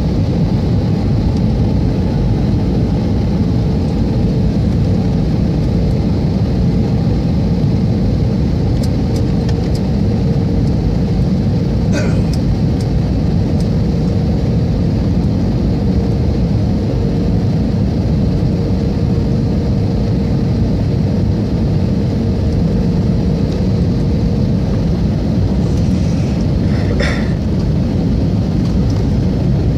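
Jet airliner cabin noise heard from a window seat: a steady rush of engine and airflow, with a steady hum that stops about three-quarters of the way through. A short click sounds about halfway and another near the end.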